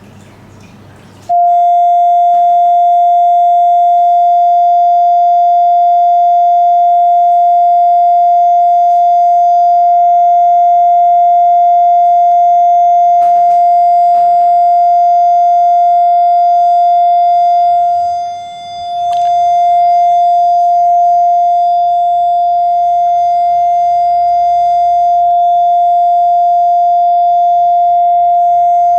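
A loud, steady single-pitch test tone of the kind used in a hearing test, played through speakers, cutting in sharply about a second in. Its level dips briefly about two-thirds of the way through. Before it starts, aquarium water trickles faintly.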